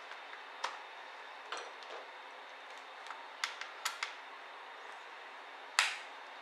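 Small, sharp clicks and taps from laptop parts and tools being handled during disassembly, scattered and irregular, with the loudest click near the end, over a steady faint hiss.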